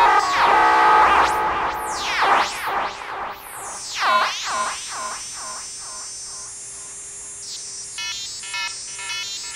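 RF NOMAD Eurorack single-sideband shortwave receiver module picking up an old signal generator wired to its antenna, making heterodyne whistles as it is tuned. Whistling tones swoop down and up in pitch, then come in a run of quick swoops about two a second. A high steady tone steps up in pitch, and choppy stuttering tones come near the end.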